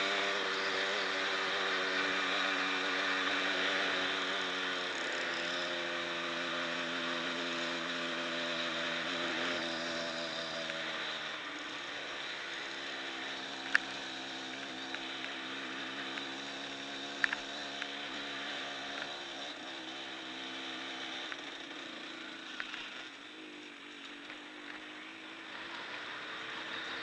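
Off-road motorcycle engine running under way, its pitch stepping with gear changes and throttle, over wind rush on the microphone. A couple of sharp clicks midway, and the engine eases off near the end before picking up again.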